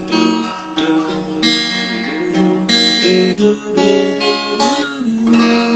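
Acoustic guitar strummed, moving through a chord about every second. A long held chord near the end.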